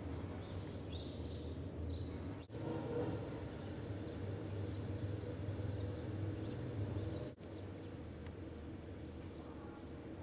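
Street ambience: small birds chirping now and then over a steady low rumble. The sound cuts out sharply for an instant twice, once at about a quarter of the way through and again about three quarters through.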